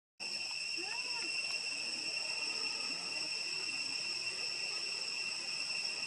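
Steady, high-pitched insect chorus, a continuous shrill drone that comes in after a split-second of silence at the very start. A faint short call is heard about a second in.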